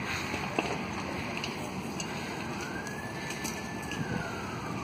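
A distant emergency-vehicle siren wails once, rising slowly to a held high tone about halfway through and then falling away. Under it runs the steady rushing noise of a large truck fire, with a few sharp cracks.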